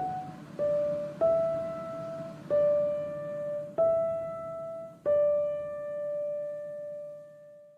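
Background music: a slow piano melody of single notes, about six struck one after another, the last held and fading away.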